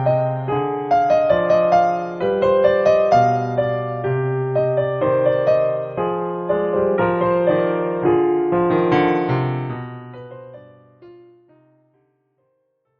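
Gentle piano background music, notes and chords struck and left to ring, fading out about ten seconds in to near silence near the end.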